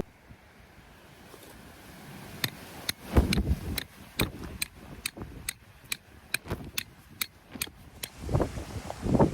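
A run of sharp mechanical clicks, about three a second, starting a couple of seconds in and stopping about a second before the end, over a faint steady hiss.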